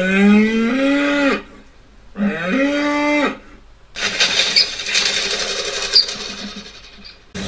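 Cow-mooing sound effect played from a Google Home speaker: two long moos, each rising in pitch and then holding, the second shorter. A rough rattling noise with a few clicks follows for the last three seconds or so.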